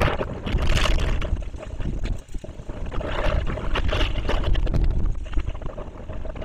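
Hurricane-force wind gusting across the nest camera's microphone: a heavy, low rushing noise that swells and eases in gusts and slackens a little near the end.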